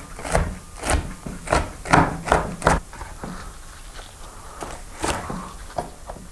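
Chef's knife slicing artichokes thinly on a wooden cutting board: a quick run of knife strikes on the wood, about two or three a second, turning slower and lighter after about three seconds.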